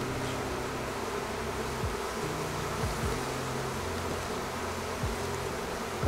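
Honeybees buzzing around an opened hive: a steady hum of many bees, with single bees flying close past several times, each pitch briefly sliding down.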